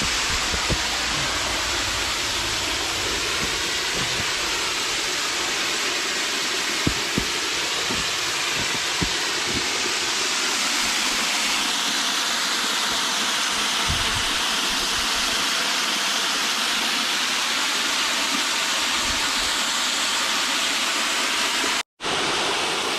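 Waterfall splashing down in a steady, full rush of water, with a few low thumps mixed in; the sound cuts out for a moment near the end.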